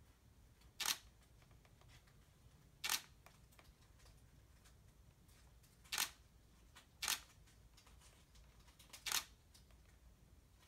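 Camera shutter clicking five times, one picture every one to three seconds, over a faint low hum.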